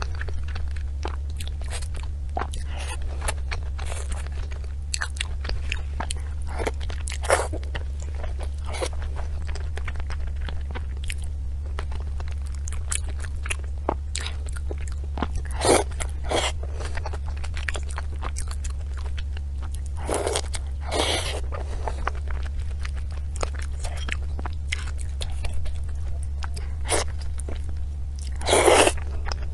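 Close-miked chewing and crunching of desserts, with many small crisp crackles and a few louder bites, over a steady low hum.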